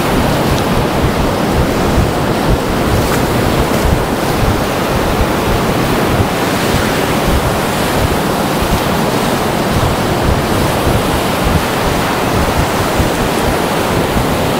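Ocean surf breaking and washing up the sand around concrete pier pilings, a steady rushing wash, with wind buffeting the microphone.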